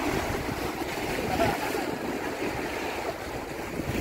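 Sea waves washing and breaking against the rocks of a breakwater, with wind gusting on the microphone.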